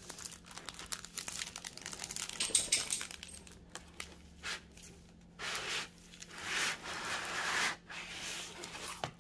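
Clear plastic film over a diamond painting canvas crinkling and rustling as hands press and smooth it flat, with two longer swishes of a hand sliding across it in the second half.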